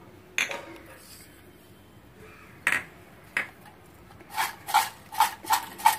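A few single clinks, then a stainless steel pot of fried taro chips being shaken to toss them in chilli powder and salt: a rhythmic rattle of chips against the pot, about three shakes a second, starting about four seconds in.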